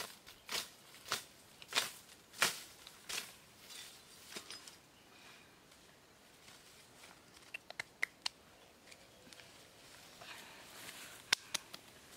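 A person moving through grassy undergrowth and leaf litter: rustling footsteps in a regular run, about one every two-thirds of a second for the first four seconds. This is followed by a few light, sharp clicks and taps.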